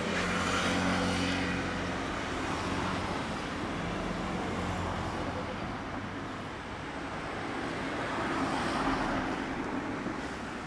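Yamaha Cygnus-X FI scooter's 125 cc single-cylinder four-stroke engine idling through its exhaust, a steady low note that swells slightly about a second in and again near the end.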